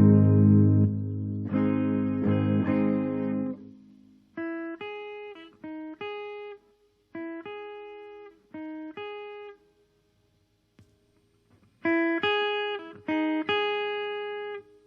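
Guitar played through a simple transistor amplifier circuit, part of a comparison of output level between different transistors. It opens with loud strummed chords for about four seconds, then short picked notes, a pause of about two seconds, and a few more picked notes near the end.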